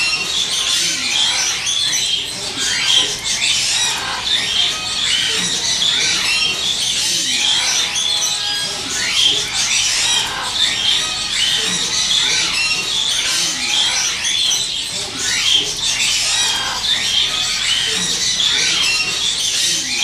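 Many parrots chirping and squawking at once: a continuous, dense chatter of short, high calls.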